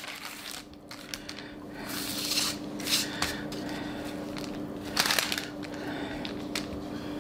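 Parchment paper rustling and crinkling in irregular bursts as hands lift and roll its edge over soft candy dough, over a steady low hum.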